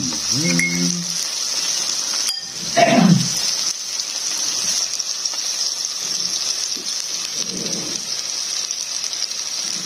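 Pork belly and thin beef slices sizzling steadily on a hot grill pan.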